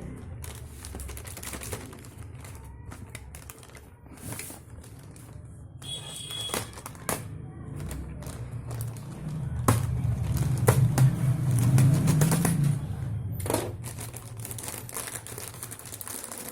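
Irregular clicks, taps and knocks from handling a thermoflask and its cardboard packaging during unboxing, over a low rumble of handling noise that swells near the middle.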